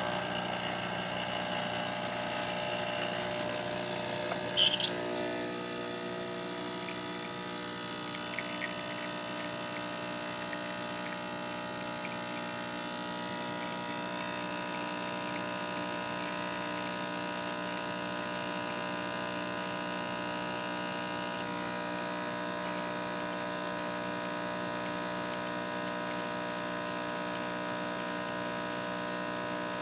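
Starbucks Sirena espresso machine's pump buzzing steadily while it pulls a double shot. There is a sharp click about four and a half seconds in, after which the hum settles to a slightly lower, even drone.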